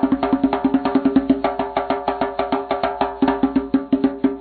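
Background music: a fast run of evenly spaced, pitched percussive notes, about six a second, like mallet percussion.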